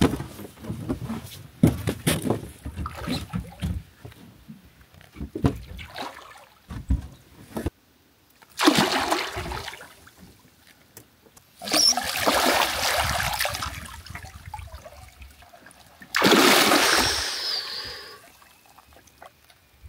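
Water splashing in three bursts of a second or two each, after a run of scattered knocks and bumps.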